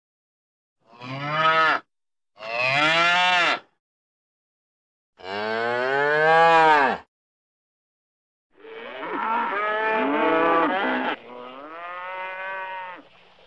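Holstein dairy cows mooing: about five separate moos, each rising then falling in pitch, the first three separated by silent gaps, then longer calls in the second half with two cows overlapping.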